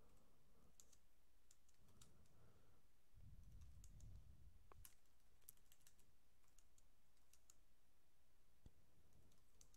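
Faint computer keyboard typing: scattered, soft key clicks at irregular intervals.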